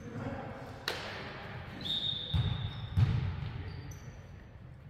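Volleyball bouncing on a hardwood gym floor: two sharp thuds about two seconds apart, each echoing in the hall, the second the louder. A short steady high tone sounds between them, and faint shoe squeaks follow near the end.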